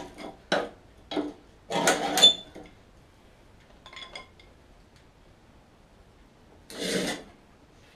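Hand tools and metal mower parts being handled: a run of sharp knocks and clinks, some ringing briefly, then a few faint clinks about halfway through and a short scrape near the end.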